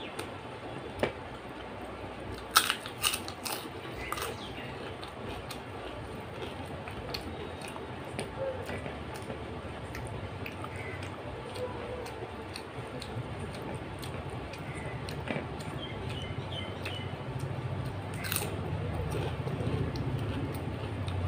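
Close-up eating sounds: fingers mixing rice and dal on a plate and chewing, with a few sharp crisp clicks. A low rumble builds toward the end.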